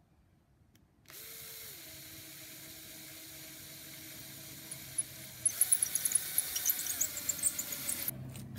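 A small flexible-shaft rotary tool starts about a second in and runs at a steady pitch. About halfway through, its bit bites into the soft aerated-concrete block, adding a gritty crackling grind as it drills an entrance hole. The tool stops shortly before the end.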